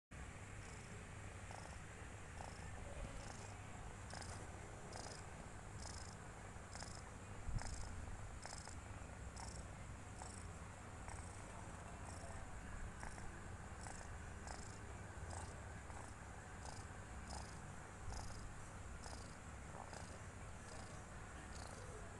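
A sleeping kitten snoring: faint, high-pitched breaths about once a second in a steady rhythm, over a low steady hum. A single brief thump sounds about seven seconds in.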